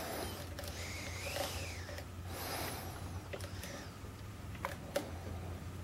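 Faint scraping of a hook pick moving in the keyway of a KABA Peaks lock cylinder, followed by a few small sharp clicks in the second half as it works the pins, over a low steady hum.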